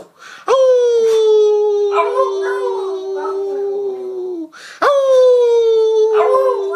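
Beagle howling: two long howls, each starting with a sharp upward leap in pitch, then settling to a steady held note, the first lasting about four seconds and the second beginning just before the five-second mark after a brief pause.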